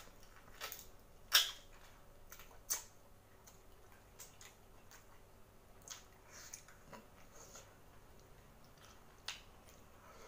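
Close-miked eating of boiled seafood by hand: wet lip smacks, sucking and chewing, heard as scattered sharp clicks. The two loudest smacks come about a second and a half in and just under three seconds in, with softer ones later.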